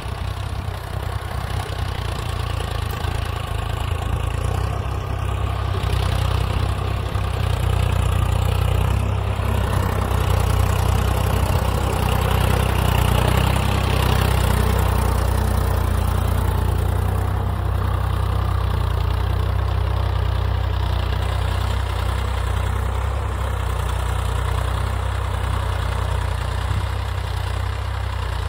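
Swaraj 855 FE 4WD tractor's three-cylinder diesel engine running steadily while pulling an 11-tine cultivator through dry soil.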